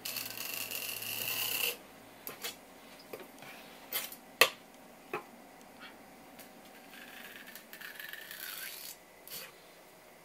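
Kitchen knife slicing open a pinned conger eel, the blade scraping along its body and backbone in a loud rasp lasting about two seconds. A few sharp clicks follow, then a softer scrape near the end.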